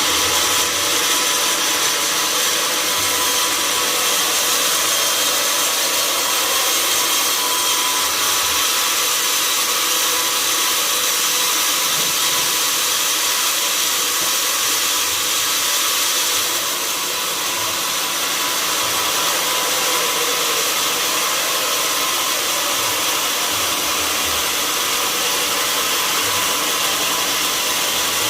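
Sawmill saw running steadily while cutting an oak log, a continuous high whine with a constant hum underneath; it eases slightly about two-thirds of the way through.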